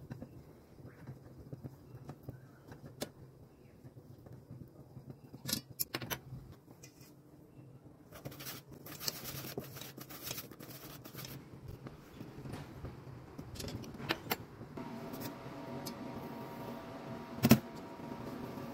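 Kitchen utensils working in stainless steel bowls: a spatula stirring melted chocolate over a low steady hum, then, about eight seconds in, a wire whisk scraping quickly around a metal bowl of dry ingredients. A single sharp knock near the end is the loudest sound.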